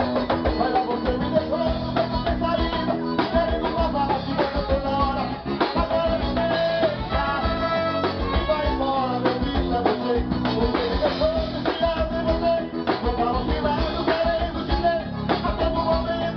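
Live forró band playing a dance number with a steady beat: accordion, zabumba drum, guitar and brass, with a man singing into the microphone.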